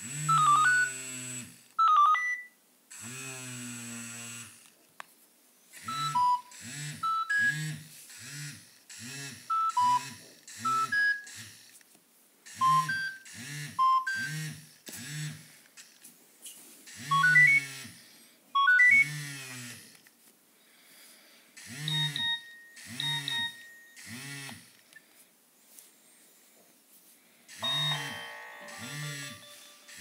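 Nokia 6600 mobile phone's built-in speaker playing a string of short message alert tones, one after another, each a quick run of beeping melodic notes with brief pauses between them.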